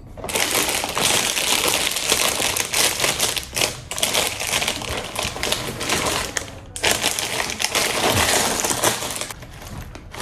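Dry chocolate cereal being poured into a bowl, a dense rattle of small crunchy pieces hitting the bowl and each other. It comes in two pours: a long one, then after a brief break at about seven seconds, a shorter one.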